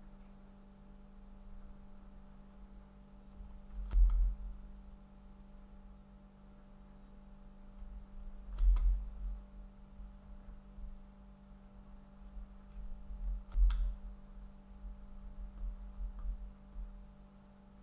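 Snooker balls clicking as shots are played: three loud sharp clicks a few seconds apart, each with a dull thud, then several fainter clicks. A steady low hum runs underneath.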